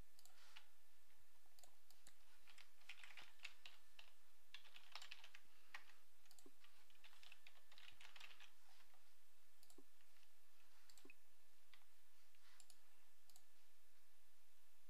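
Faint typing on a computer keyboard in a few short runs of keystrokes, with mouse clicks, over a steady hiss.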